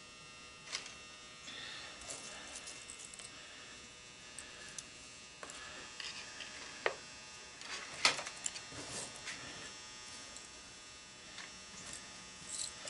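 Faint steady electrical hum, with scattered light clicks and ticks of small loose copper wire strands being picked from a motor stator and handled, the sharpest about eight seconds in.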